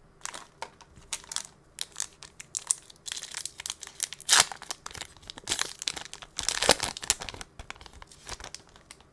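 Foil wrapper of a hockey card pack crinkling and tearing as it is ripped open by hand, a run of sharp crackles with the loudest rips about four and seven seconds in.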